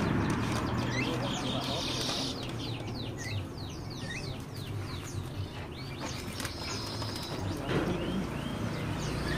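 Many caged small birds chirping, a busy run of short, quick high notes, most of them falling in pitch, over a steady low hum.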